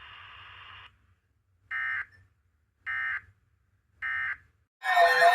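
NOAA Weather Radio signing off an alert: a moment of faint radio hiss, then three short bursts of buzzing EAS data tones about a second apart, the SAME end-of-message signal that closes the warning. Music starts loudly near the end.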